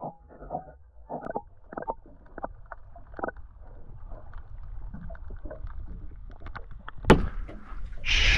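Muffled clicks and knocks picked up by a camera held underwater, over a low rumble. A sharp knock comes about seven seconds in, then a loud rush of splashing water as the camera is lifted out of the water near the end.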